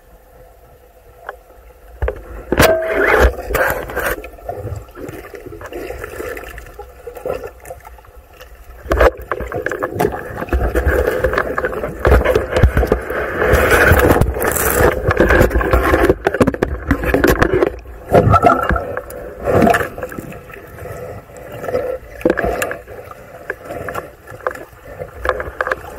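Underwater sound through a speargun-mounted camera: a muffled water rumble with frequent knocks and scrapes as the gun and diver push through submerged reed stalks. It is quiet for about the first two seconds, then louder and busier.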